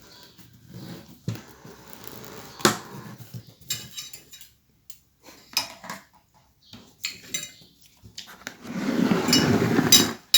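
Cutlery clinking and knocking on a plate during a meal, a scatter of separate sharp clicks, with a louder, longer noisy sound near the end.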